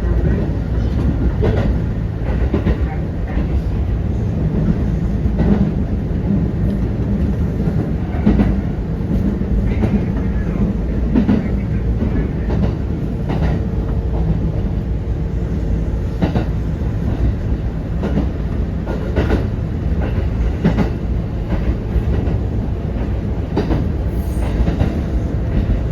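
Kintetsu 1810 series electric train running: a steady low rumble of wheels and motors, with sharp clicks every second or two as the wheels cross rail joints.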